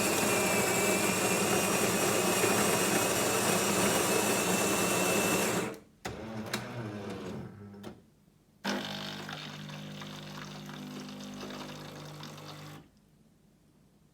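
Jura ENA 9 bean-to-cup machine making an espresso: its built-in grinder runs loudly for about six seconds, then the brewing unit clicks and shifts, then the pump hums steadily for about four seconds as the shot is brewed before stopping.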